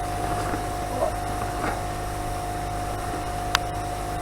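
Air compressor running steadily with a constant hum while a tractor tyre is inflated through an airline. A single sharp click comes about three and a half seconds in.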